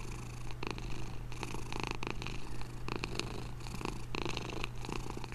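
A domestic cat purring steadily and close up, over a low steady hum.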